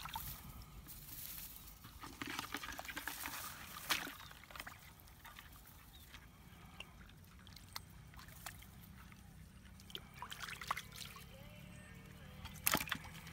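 Hands splashing and sloshing in shallow, muddy rice-paddy water while groping for catfish. The splashing is busiest in the first four seconds, then gives way to scattered small clicks and drips, with a sharper splash near the end.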